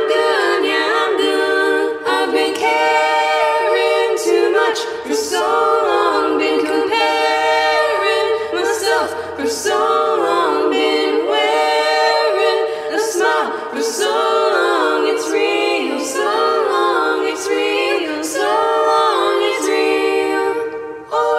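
A cappella choir of layered, multitracked vocals singing in close harmony, with no instruments. The voices break off briefly near the end.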